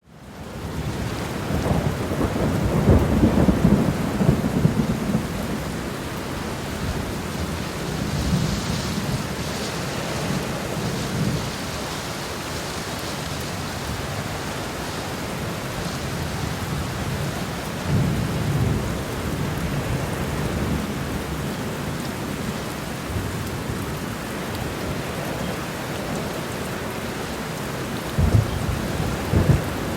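Heavy rain falling steadily, with rolls of thunder. The loudest, longest rumble comes a couple of seconds in, several weaker rumbles follow midway, and two sharper thunderclaps come near the end.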